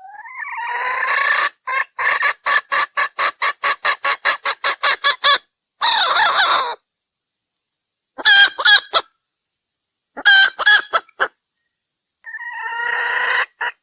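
Sumatran red junglefowl hen calling: a rising call that breaks into a fast run of short clucks, about five a second, then a longer call, two short bursts of clucks, and another rising call with clucks near the end. It is a hen's lure call of the kind played to draw wild junglefowl cocks.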